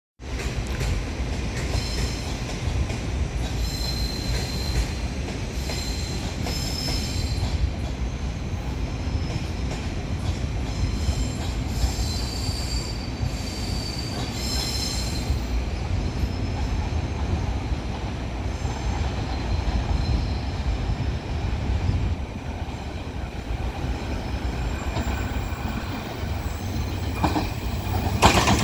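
DMU3100 diesel multiple unit passing, its diesel engines giving a steady low rumble, with short high-pitched wheel squeals repeating through the first half. It grows louder with a brief clatter near the end.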